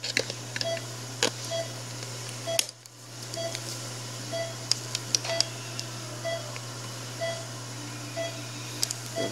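Operating-room patient monitor beeping with the pulse: a short mid-pitched beep a little more than once a second, over a steady low equipment hum, with scattered small clicks.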